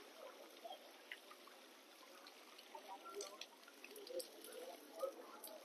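Near silence: faint outdoor ambience with a soft trickle of water and a few faint clicks in the second half.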